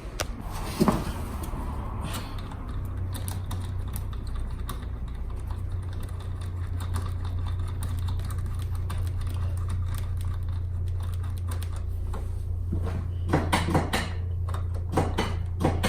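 A steady low mechanical hum with rapid light ticking, and a few sharp knocks near the end.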